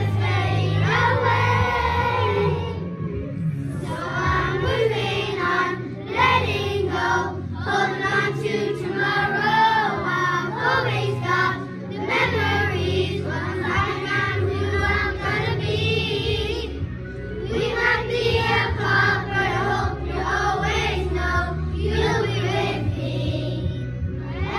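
Young children singing a song together over a backing track with steady bass notes.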